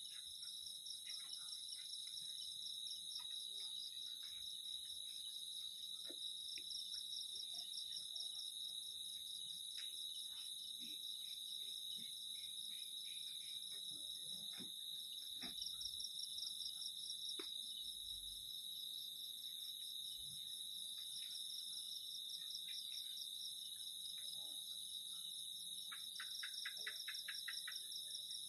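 Night chorus of crickets and other insects: several steady high-pitched trills layered together, one of them pulsing, with scattered faint snaps and knocks. Near the end a short, rapid, lower trill joins in.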